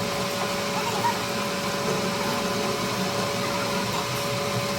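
Steady hum of a running machine, with a constant high-pitched tone over an even rushing noise.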